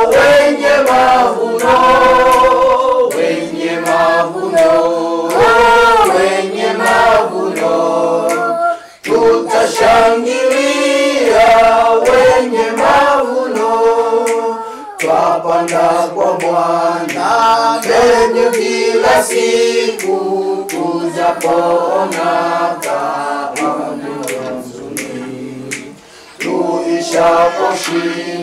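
A group of voices singing a cappella, with short breaks between phrases about nine seconds in and near the end.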